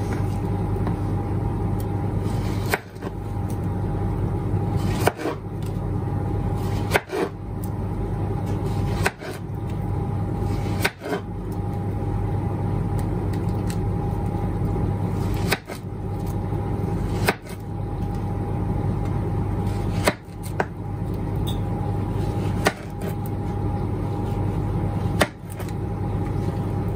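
Kitchen knife slicing through a plantain and knocking on a plastic cutting board, about a dozen sharp taps a couple of seconds apart, over a steady hum.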